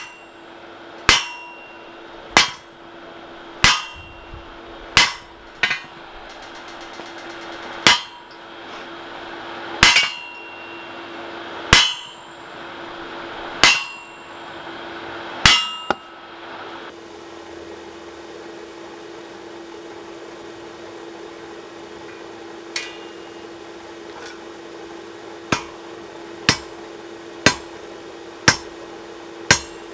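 Hand hammer blows on hot 1080 steel on an anvil, each strike ringing briefly, about one every one to two seconds. After a pause of several seconds midway, lighter blows come about once a second, over a steady low hum.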